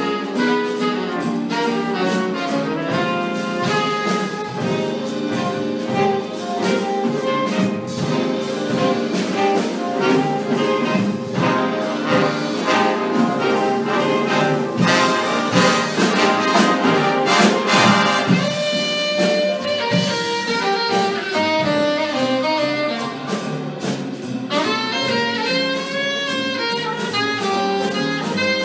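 Jazz big band playing: saxophones, trumpets and trombones in ensemble over a rhythm section with drums keeping time. It is recorded from the room rather than through the sound board. Near the end a brighter, more sustained brass passage begins.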